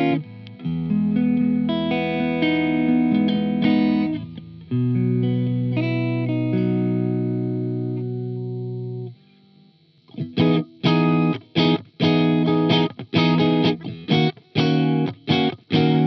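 Bacchus Universe Series Strat-style electric guitar played clean through an amp: held, ringing chords and picked notes on the middle pickup. After a brief pause about nine seconds in, it switches to short, choppy strummed chords on the middle and bridge pickups together.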